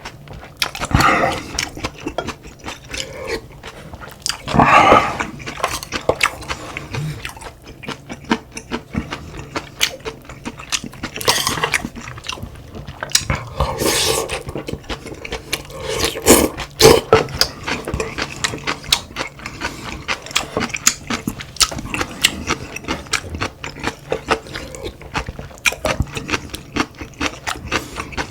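A person eating a meal of cod-head stew and rice: close chewing and mouth sounds with many small clicks, and several louder bursts, the loudest about five seconds in.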